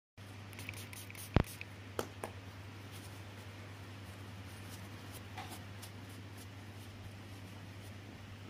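A few sharp clicks and taps in the first two seconds, the loudest about one and a half seconds in, over a steady low hum.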